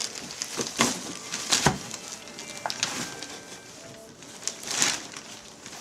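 Wrapping paper rustling and tearing in short, separate bursts as a present is unwrapped.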